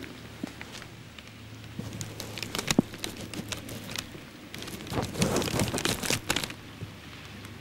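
Rain hitting a plastic bag wrapped over the camera, heard as irregular crackling taps, thickest about five to six seconds in.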